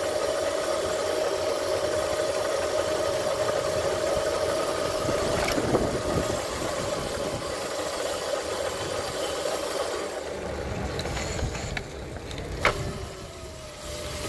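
Razor MX500 electric dirt bike's motor and chain drive whining steadily under way, with road and wind noise. About five or six seconds in the whine falls away as the bike slows, and near the end there is a single sharp click.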